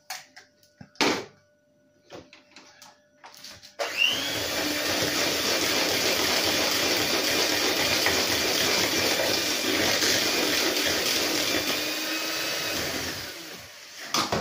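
Electric hand mixer beating an egg into creamed cake batter in a metal bowl. After a few light knocks, the motor starts about four seconds in with a brief rising whine, runs steadily for about nine seconds, then winds down near the end.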